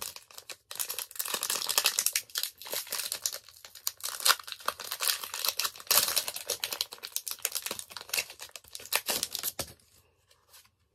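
Foil Pokémon trading-card booster pack wrapper being torn open and crinkled by hand: dense crackling starting about a second in and stopping shortly before the end.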